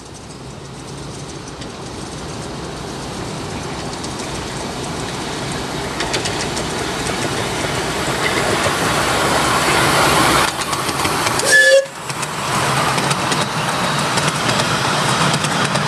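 Miniature railway train running along the track toward and past the listener, the rumble and clatter of its wheels on the rails growing steadily louder. About twelve seconds in the sound breaks off for an instant, then carries on up close.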